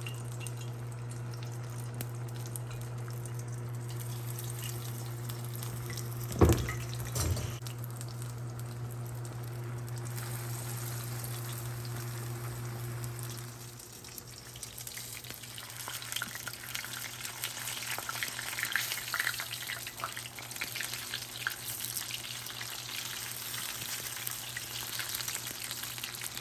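Fish and chips frying in hot oil, a steady sizzle and crackle that grows busier in the second half. A steady low hum runs under it until about halfway, and two knocks come about six and seven seconds in.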